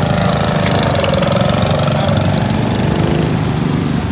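Several small engines of Wheel Horse garden tractors and a homemade motorbike running together, with one engine's pitch rising over the first second and easing back down about three seconds in.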